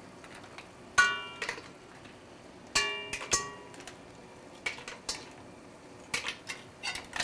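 A metal utensil clinks against a pan of steamed mussels as the opened mussels are picked out. There are two sharp, ringing clinks, about one second and about three seconds in, with lighter clicks and taps between them.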